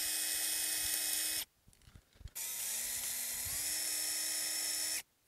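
Cordless drill motor whining in two runs: it stops about a second and a half in, starts again a second later at a lower pitch, steps up in pitch twice, then cuts off sharply.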